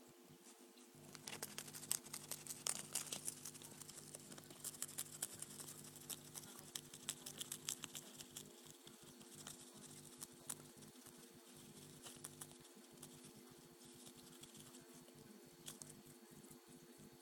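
Newspaper crackling and rustling in quick, uneven clicks as a peach-faced lovebird tears fine strips from it with her beak and tucks them into her tail feathers. The crackling starts about a second in, is densest for the next several seconds, and thins to scattered ticks later on.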